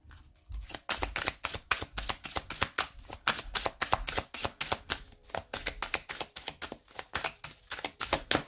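A deck of oracle cards shuffled by hand: a quick, even run of card slaps and flicks, about five or six a second, which stops just before the end.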